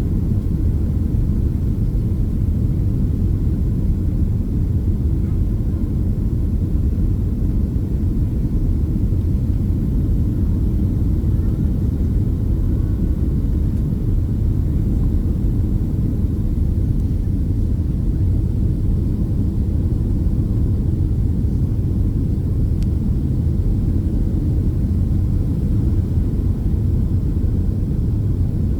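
Steady low rumble of a Boeing 767-300ER heard from inside the passenger cabin: engine and airflow noise holding an even level throughout.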